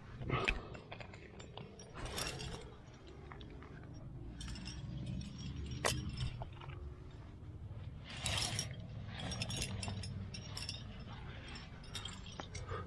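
Climbing rack of metal carabiners and protection clinking and jangling on a harness as the climber moves, in irregular sharp clicks and rattles.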